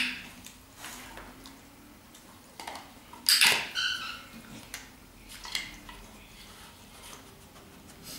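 A small plastic tub knocked and nudged about on a rug by a dog, in a few light taps, with two sharp clicks: one at the very start and a louder one a little over three seconds in.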